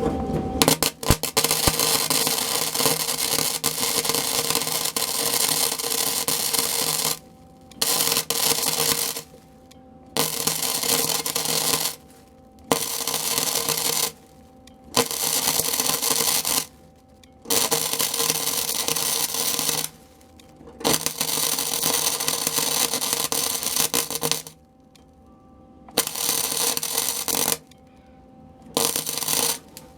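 Electric arc welder crackling as a sheet-metal patch is welded into a truck's cab floor, in about nine separate runs of one to seven seconds with short pauses between them. A steady hum remains in the pauses.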